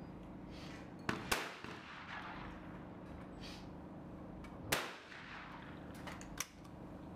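Shotgun shots at clay targets: two sharp reports a quarter second apart about a second in, another loud shot near the five-second mark, and a fainter crack about a second and a half later, over a steady low hum.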